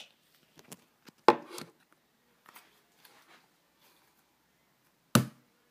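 Scattered light taps and knocks, then one sharp thump about five seconds in: a ball of thinking putty bounced off a desk.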